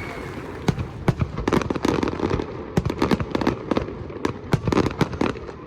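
Fireworks going off: a rapid, irregular string of sharp bangs and crackles.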